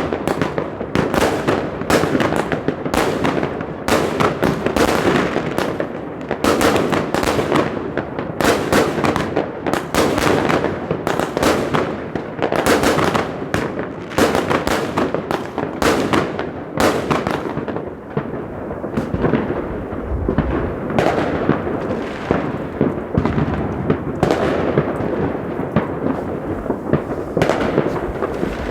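Many fireworks going off at once: a dense, continuous run of sharp bangs and crackling over a steady rumble. From about eighteen seconds in the bangs sound duller and more distant.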